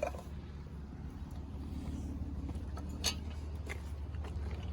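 A vehicle engine idling with a low, steady hum. There are a few faint metal clinks, about a second in and again about three seconds in.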